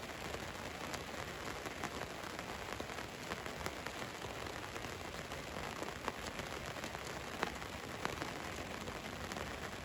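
Rain falling on a van: a steady hiss with individual drops ticking sharply through it, a few louder drop hits in the second half.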